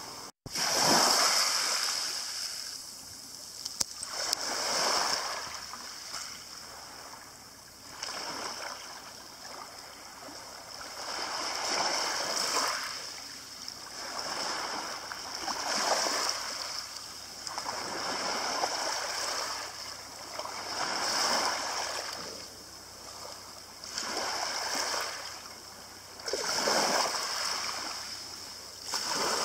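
Small waves washing in and out over a pebble shingle beach, each wash swelling and fading about every three to four seconds. The sound cuts out for a moment just after the start.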